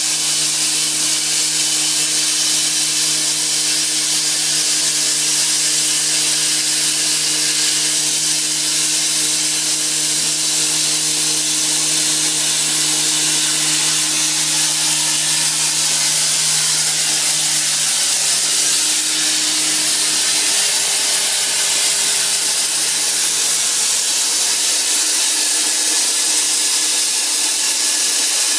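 Hypertherm Powermax 1000 plasma torch cutting half-inch steel plate: a loud, steady hiss of the cutting arc and its air. A low steady hum runs underneath and partly drops away about 25 seconds in.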